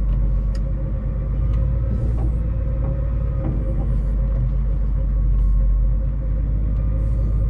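Volvo L60E wheel loader's diesel engine running steadily, heard from inside the cab, with a steady whine over the drone and a few light knocks. It swells slightly about five seconds in.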